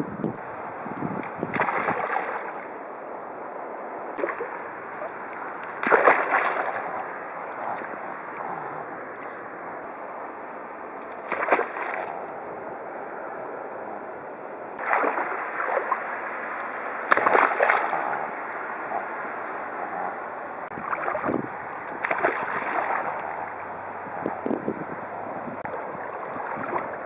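Water splashing and sloshing as a Yorkshire terrier paddles through shallow water, with a steady lapping and louder splashes every few seconds.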